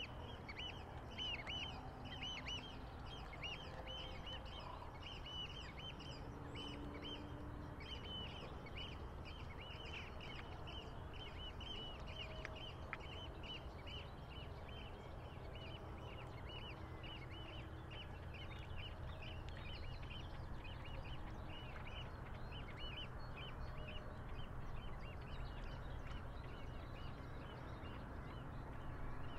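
A water-bird calling over and over in short, quick notes, about three a second, thinning out after about twenty seconds, over a steady low rumble of breeze and water.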